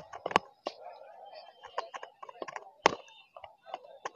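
Faint crowd chatter with irregular sharp clicks and knocks, the loudest almost three seconds in: handling noise of a handheld phone camera being jostled as it is carried through the crowd.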